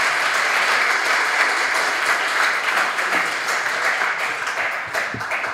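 Audience applauding in a lecture hall, a dense steady clapping that thins out near the end.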